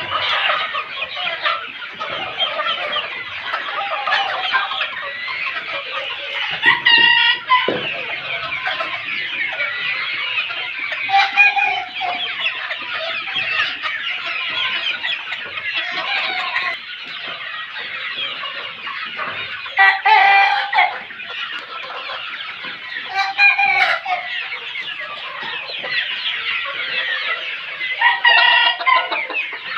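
A flock of 75-day-old deshi (Bangladeshi native) chickens clucking and chattering continuously. Louder calls from the young cockerels break out about five times, each about a second long.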